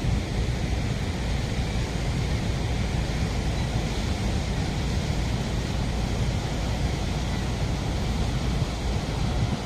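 Steady roar of Niagara Falls: a dense, unbroken rushing of falling water, heaviest in the low end, with wind on the microphone.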